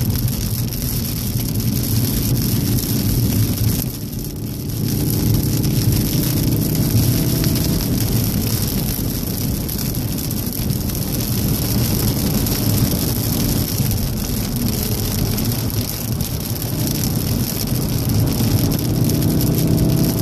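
Cabin sound of a 2014 VW Golf VII R at speed, its turbocharged 2.0-litre four-cylinder running under load over a steady hiss of tyres on a wet road. The engine note drops briefly about four seconds in, then climbs again.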